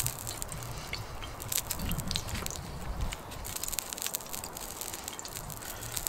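Wood fire crackling in a small titanium box stove, scattered sharp ticks, with a knife and fork working on a plate.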